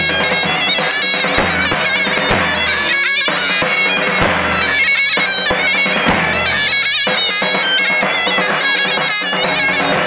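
Davul and zurna playing a folk dance tune: the zurna's loud, reedy melody wavers and trills over the deep strokes of the davul bass drum.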